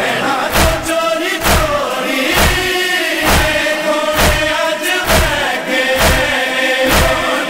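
A group of men chanting a noha, a Shia mourning lament, in unison. A sharp beat falls about once a second and keeps time.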